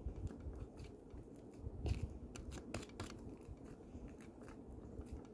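Homemade slime being stirred and worked by hand, giving scattered small sticky clicks and crackles.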